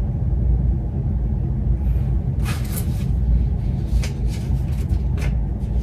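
A steady low rumble, with a few short clicks and rustles from small objects being handled in the second half.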